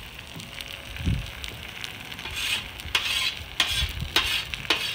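Smashed potatoes frying and sizzling on a large flat griddle, with a metal spatula scraping across the hot griddle surface several times in the second half.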